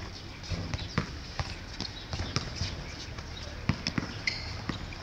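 Basketball bouncing on an outdoor hard court during a pickup game: irregular dribbles and thuds, several a second at times and spaced out at others.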